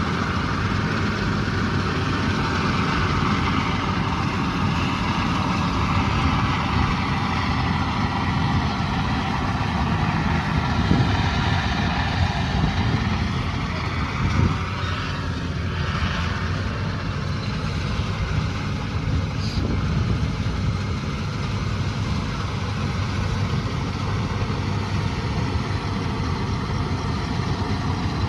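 Combine harvester's diesel engine running steadily, its note drifting slightly up and down.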